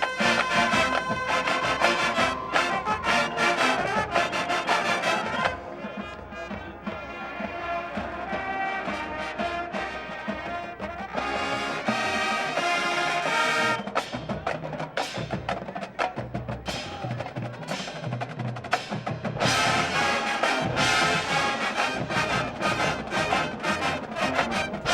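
Marching band playing, brass with percussion. A loud opening gives way after about five seconds to a quieter passage led by sharp wood-block-like percussion strikes, and the full band comes back in loud near the end.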